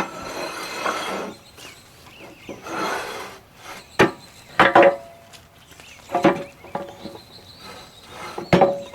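Steel blocks and a small plate being slid and set down on a steel welding table: two scraping sounds, then several sharp metal clanks, each with a short ring.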